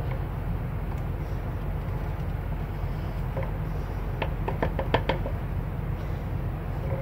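Metal wrench clicking and clinking against the brass air-line fitting on top of a truck's air spring as the fitting is loosened, with a quick run of sharp clicks about four seconds in. A steady low rumble runs underneath.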